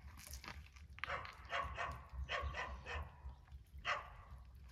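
A dog barking, a string of short, sharp barks.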